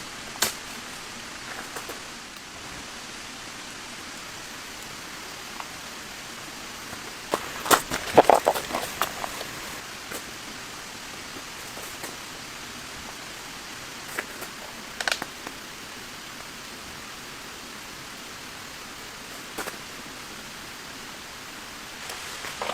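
Steady rain hiss. Scattered sharp taps and clicks sound over it, with a loudest cluster of knocks about eight seconds in and single taps later on.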